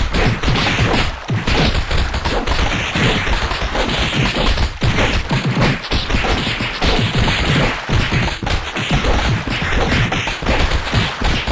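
A dense, unbroken barrage of overlapping bangs, crashes and thumps, loud throughout with no pauses and no clear pitch.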